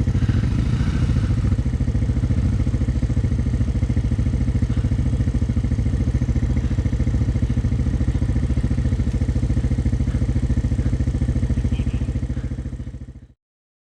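Single-cylinder four-stroke Honda ATV engine idling steadily, with a fast even pulse. The sound cuts off abruptly near the end.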